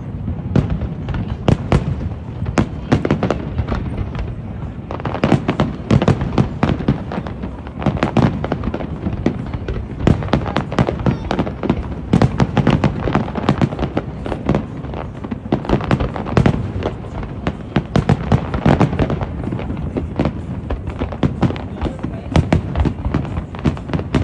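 Fireworks going off in a rapid, continuous barrage of bangs and crackles, many per second.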